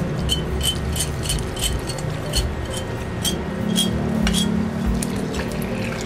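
Repeated light clinks on a glass bowl holding dissolved cornstarch, about two or three a second, each with a short ring, stopping about four and a half seconds in.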